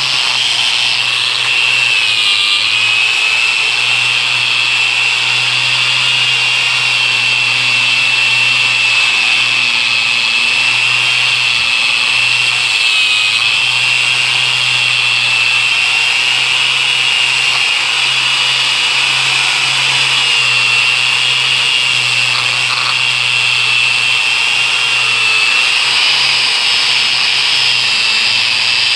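Angle grinder running steadily for sanding, a high whine that wavers slightly over a low hum and the hiss of the abrasive against the surface.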